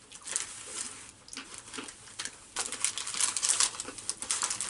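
Candy wrappers and packaging rustling and crinkling as someone rummages through a stash of sweets, in scattered bits at first and then dense and louder from about two and a half seconds in.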